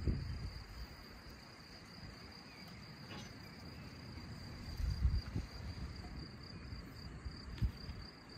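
Crickets chirring steadily in a high, even drone. A few soft low knocks from plates and serving tongs being handled come about five seconds in and again near the end.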